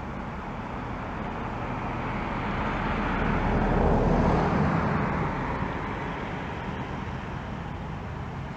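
Embraer 170 airliner's twin General Electric CF34 turbofan engines running, a rushing jet noise that swells to its loudest about four seconds in and then eases off.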